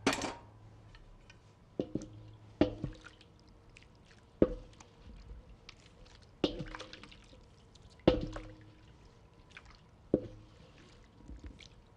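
Mozzarella curd being stirred and pressed with a paddle in near-scalding water: wet squishing and dripping, with about seven sharp wet strikes every second or two, each ringing briefly.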